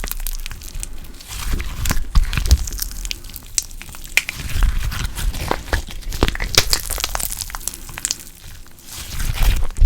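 Slime being squished and pressed by hand close to the microphone, giving a dense run of irregular clicks, pops and crackles.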